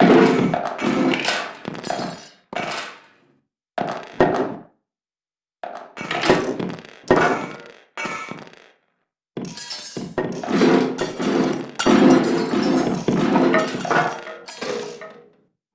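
Crashing and breaking with clinks and clatter, in several separate stretches of a few seconds each that start and stop abruptly, with dead silence between them.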